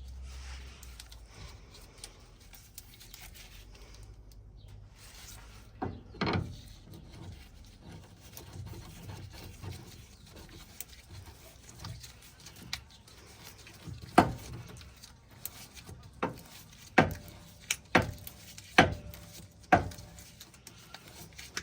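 Sharp knocks of tools and steel suspension parts while an angle kit is fitted to a car's front suspension: a couple of single knocks, then a run of five about a second apart near the end, some leaving a brief ring, with quiet rubbing and handling in between.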